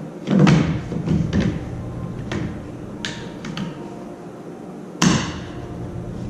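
Hard plastic knocks and clicks as a battery pack is pushed into a Power-Pole Micro Anchor and clipped in place: several separate knocks, with the loudest one about five seconds in.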